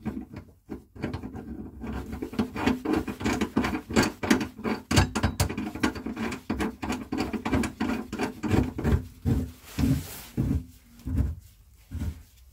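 Spare-wheel bracket nut being turned down on its threaded spigot: a quick run of small clicks and knocks, thinning to a few separate knocks about nine seconds in.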